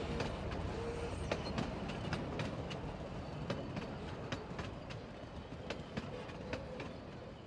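Sn3 model logging train rolling along the track, its wheels clicking irregularly over rail joints, about two or three clicks a second, over a low rumble that slowly fades as the train moves away.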